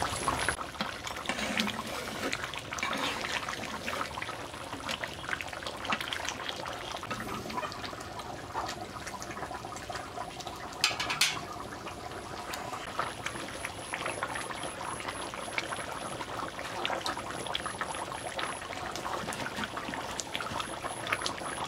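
Thick chicken curry bubbling and popping as it simmers in an iron karahi, with the meat almost done. There is a short, sharper sound about eleven seconds in.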